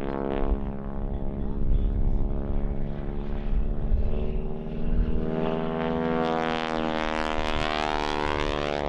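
Aerobatic biplane's piston engine and propeller droning steadily overhead. In the second half the sound grows brighter and sweeps in pitch as the plane passes.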